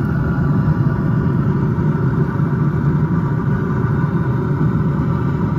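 A motor runs steadily with an even low drone that does not change.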